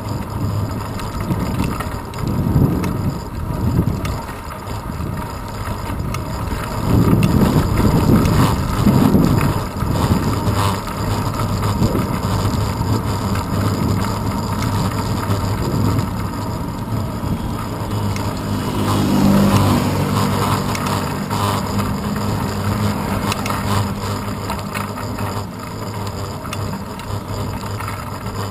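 Wind buffeting and road rumble on a handlebar-mounted action camera as a bicycle rides along a road, in uneven low gusts that are loudest about a quarter of the way in. A low pitched hum joins briefly about two-thirds of the way through.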